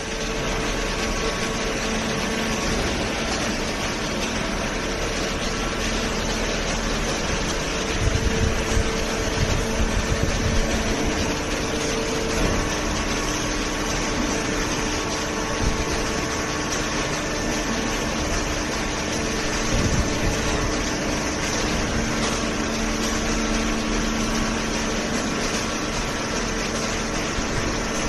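A horizontal hydraulic waste-paper baler line running: a steady machine hum from its motors and hydraulic pump. A few heavier low knocks come between about eight and eleven seconds in.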